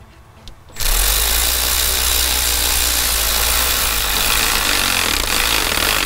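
Cordless impact wrench hammering steadily for about five seconds, starting about a second in and stopping suddenly, as it drives down the nut of the band clamp on the turbo's compressor elbow.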